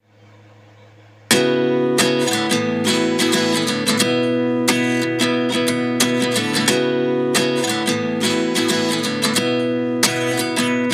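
Background music: a song's instrumental intro of strummed acoustic guitar chords, kicking in suddenly about a second in after a faint low hum.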